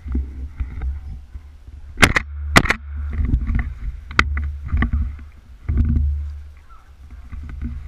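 Two sharp shotgun shots about half a second apart, over rumbling handling and rustling noise from a hunter moving along a trail, with a weaker knock a moment later.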